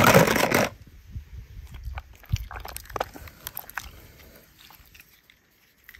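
A short, loud burst of noise right at the start, then wet, crackling squishes and small clicks as a toy car is pushed into soft slime. The squishing thins out and dies away over the last second or two.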